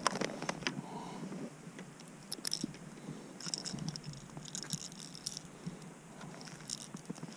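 Close handling noise as a landed bass is held in gloved hands and a hard-bodied lure is worked free of its mouth. A sharp knock comes right at the start, followed by scattered small clicks, crackles and rustles of the lure and its hooks.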